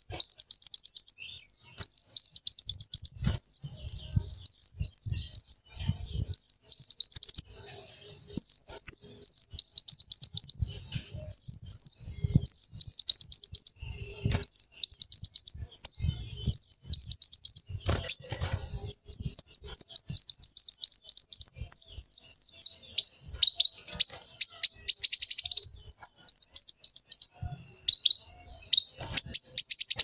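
Kolibri wulung (Van Hasselt's sunbird) singing: fast, high-pitched phrases of rapid notes, repeated almost without a break and separated by short pauses. Faint low knocks sound underneath.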